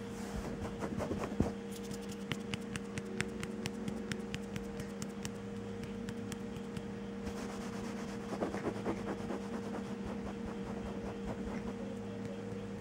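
Light, rapid clicking and scratching, dense through the first half and again briefly later: young kittens' claws catching on a fleece blanket as they move about. A steady low hum runs underneath.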